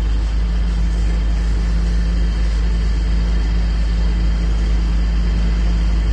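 A diesel engine running steadily at idle, a loud, even low rumble that does not change.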